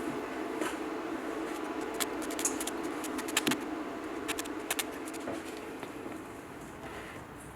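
Workshop noise: a steady hum with a run of sharp clicks and taps in the middle, fading a little near the end.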